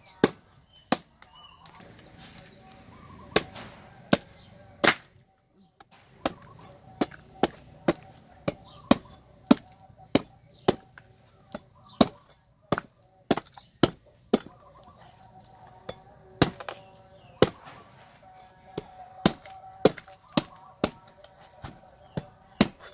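Cleaver chopping into the fibrous husk of a green coconut: a run of sharp, irregular knocks, roughly one or two a second, with a short pause about five seconds in.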